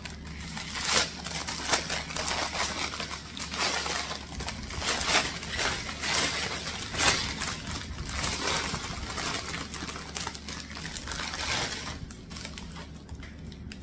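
Clear plastic packaging crinkling and rustling in irregular bursts as it is handled and opened to unwrap a set of fabric bangles. It eases off near the end.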